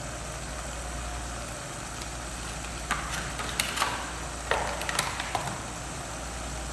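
Chicken cooking in a stainless steel pot on the stove: a steady low rumble and hiss, with a few sharp crackles and pops from about three to five and a half seconds in.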